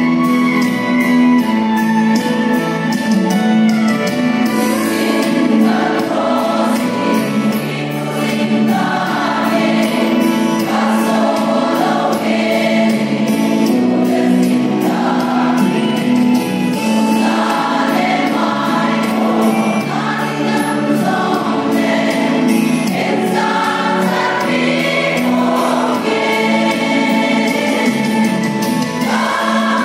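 Large women's choir singing a gospel hymn together, many voices moving in pitch as one.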